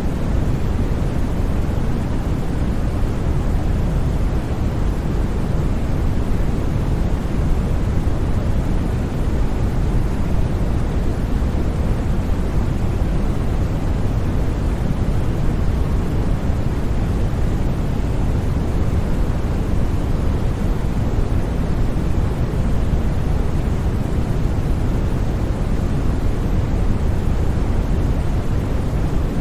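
Continuous white noise played as a sleep sound: a steady, unchanging rushing hiss with most of its weight in the low end.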